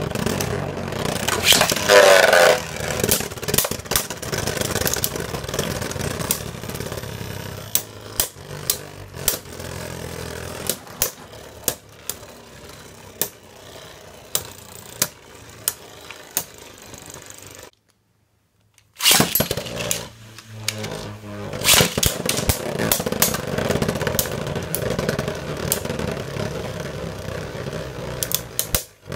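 Beyblade Burst tops Z Achilles and Archer Hercules spinning in a plastic stadium: a steady rattling whir from their tips on the floor, broken by many sharp clicks as the tops collide. The sound is loudest about two seconds in and cuts out completely for about a second a little past halfway, then the whirring and clashing go on.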